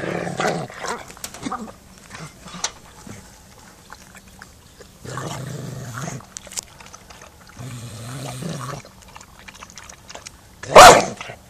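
Adult dog growling low at a puppy over a food bowl in three roughly one-second growls, warning it off the food, with small clicks of feeding in between. Near the end comes one short, loud, sharp bark.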